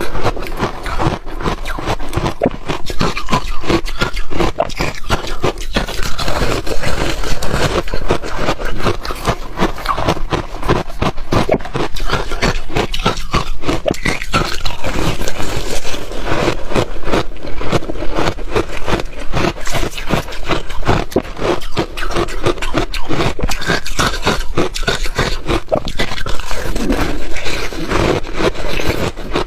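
Ice being bitten and crunched between the teeth close to the microphone, a dense, continuous run of sharp cracks and crunches.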